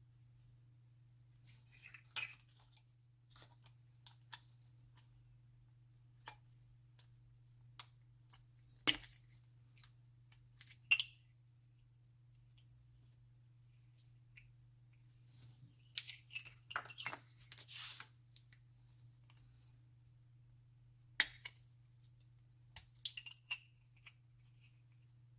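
Glitter slime being squished and stretched by hand, giving scattered sharp sticky clicks and short crackling pops at irregular moments, busiest in a run about two-thirds of the way through. A faint steady hum lies underneath.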